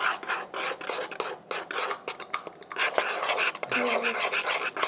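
Glitter-glue slime being stirred and scraped in a bowl: a run of quick, irregular sticky clicks and scraping.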